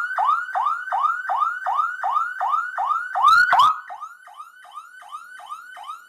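Small 12-volt alarm siren wailing in fast repeating rising sweeps, about three and a half a second. A loud clatter of handling comes about three and a half seconds in, after which the siren sounds quieter.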